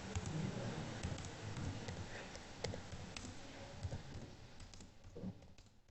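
Faint, scattered computer mouse and keyboard clicks at irregular intervals over low room noise.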